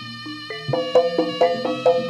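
Jaranan gamelan music: a melody of held notes stepping downward, then, just under a second in, a steady beat of struck ringing tones and drum comes in.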